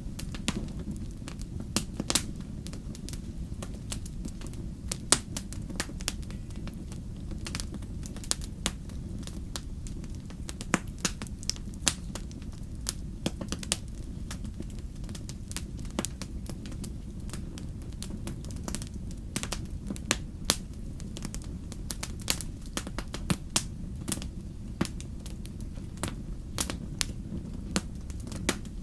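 Wood fire crackling in a fireplace: sharp pops and snaps scattered irregularly over a steady low rumble.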